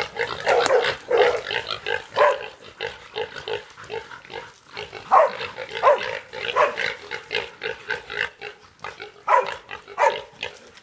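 A mob of pigs squealing and grunting as hunting dogs bail them up, with the dogs barking among them: a busy, irregular run of short calls, several a second.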